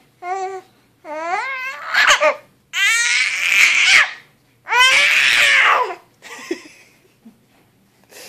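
Baby laughing and squealing in three loud bursts, each breaking into breathy, shrieking laughter, then falling quiet.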